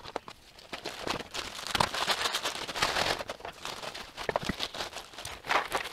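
Irregular crinkling and rustling of a foil Mylar pouch and a plastic zip-top bag, with dry freeze-dried rice grains rattling inside as they are shaken down and handled.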